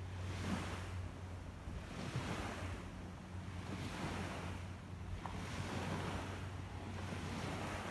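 Outdoor ambience: a soft rushing noise that swells and fades about every two seconds, over a steady low hum, with wind on the microphone.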